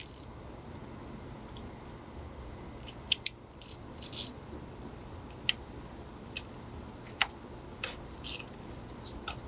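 Hand ratchet and socket working a 10 mm bolt loose in an engine bay: scattered sharp clicks and a few short ratcheting runs, irregularly spaced.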